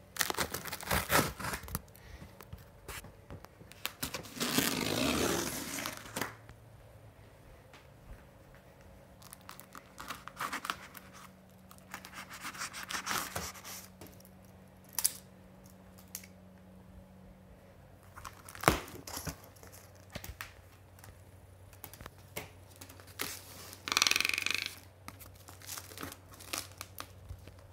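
A cardboard box being opened by hand: several bursts of tape or cardboard tearing, with crinkling packaging and scattered small knocks and scrapes between them.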